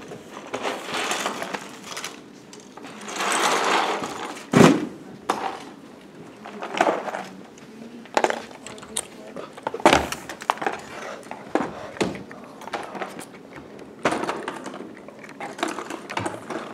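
Loose plastic building pieces (LEGO and K'NEX) rattling and clattering in plastic bins and boxes as they are carried and packed away, with sharp knocks of containers set down, the loudest about four and a half seconds in and again at about ten seconds.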